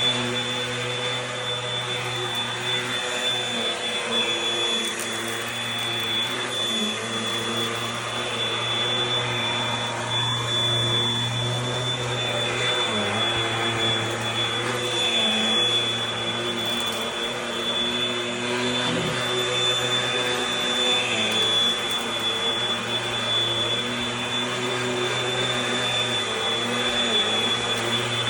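Eureka AirSpeed Gold upright vacuum cleaner running steadily, its motor giving a constant high whine over a rushing airflow noise.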